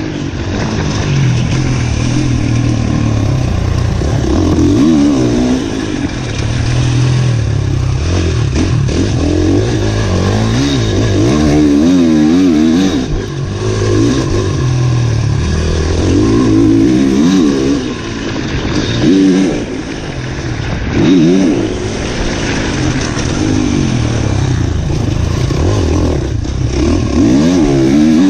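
Motocross bike engine heard close from the bike itself, revving up hard and easing off again and again as it is ridden round a dirt track.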